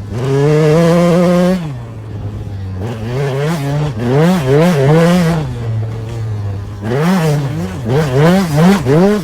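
KTM 200 SX single-cylinder two-stroke dirt bike engine revving hard. It is held at high revs, drops back, then rises and falls in quick repeated surges as the throttle is worked over whoops.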